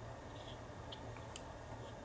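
Faint, sparse small clicks and ticks of tiny lock parts being handled as pins and springs are picked out of a lock core, over a steady low hum.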